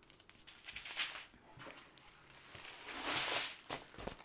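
Crinkling and rustling of small plastic drill bags and the diamond painting canvas being handled, in irregular rustles with small clicks; the loudest, longest rustle comes about three seconds in.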